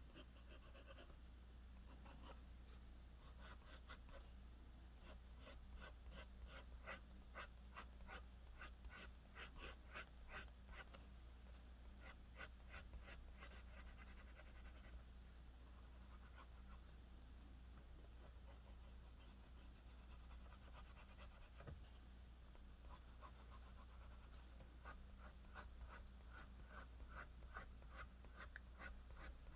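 Graphite pencil scratching on drawing paper in quick runs of short strokes, the fine hatching used to draw strands of hair, pausing briefly a little before the middle and again past it. A faint steady low hum runs underneath.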